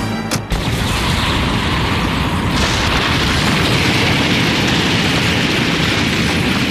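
Explosion sound effect: a sudden blast about half a second in, then a long, dense rumble of the blast and its debris that swells again around two and a half seconds in.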